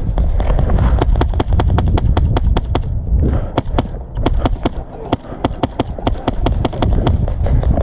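Airsoft guns firing in rapid, irregular sharp clicks, several a second, over low thumping of movement and gear on the camera.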